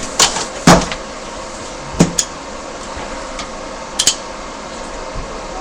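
Handling noise: a few sharp clicks and knocks, some in quick pairs, over a steady hiss.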